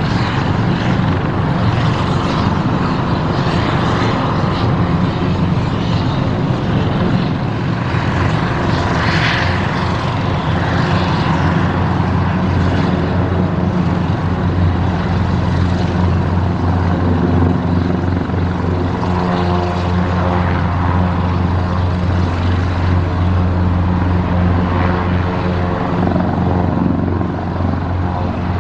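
Large twin-turbine helicopter running on the ground with its main rotor turning: a loud, steady engine and rotor sound with a constant low hum.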